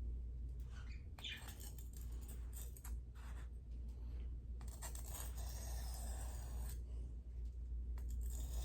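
Knife blade being drawn across a sharpening stone in scraping strokes: a short stroke about a second in, a longer stroke of about two seconds around the middle, and another near the end, over a steady low hum.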